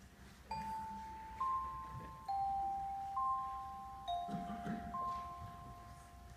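Slow melody of single bell-like chime notes, one about every second, stepping between a few pitches, each note ringing on and fading slowly.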